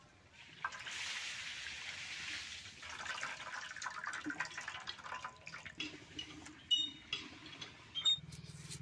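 Water splashing and trickling in a steel bowl as a bunch of blanched pumpkin leaves is lifted out and the water runs off them back into the bowl. A few sharp clicks come near the end.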